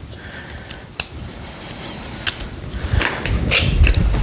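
Tools being handled on a shop floor: a sharp click about a second in, then a run of clicks and light clunks near the end as a tape measure is picked up and handled.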